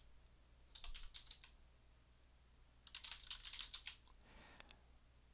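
Faint typing on a computer keyboard: two short runs of keystrokes, one about a second in and a longer one around three seconds in.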